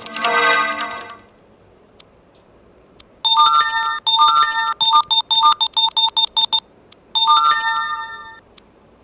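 Asus ZenFone 2 Laser notification tones played one after another: a chime fading out in the first second, then after a pause with two faint ticks, a quick, bright jingle of short repeated notes lasting about three seconds, followed by a shorter burst of the same kind that fades out.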